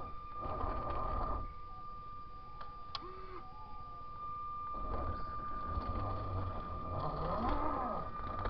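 Electric motor and geartrain of a Traxxas TRX-4 Defender 1/10-scale RC crawler whirring in two bursts as it crawls over rock, the first near the start and a longer one from about five seconds in. The pitch slides up and down near the end, and a steady high whine runs underneath throughout.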